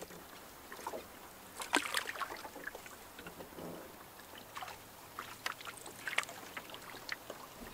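Canoe being paddled slowly: paddle strokes in the water with drips and splashes, and a few sharp light knocks at irregular moments.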